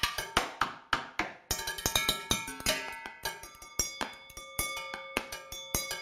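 Thin sticks rapidly striking a large upturned aluminium pot and an upturned bowl in an improvised percussion rhythm. Many strikes leave short metallic ringing tones.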